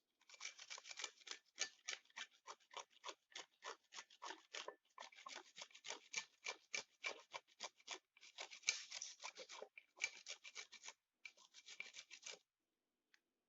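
Rapid, evenly repeated scraping or cutting strokes, about four to five a second, in several runs with short breaks, then one lone click near the end.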